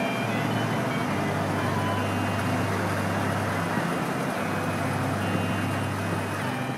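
City street traffic at an intersection: engines running and vehicles, including a bus and delivery vans, passing close by, with a steady low engine hum underneath.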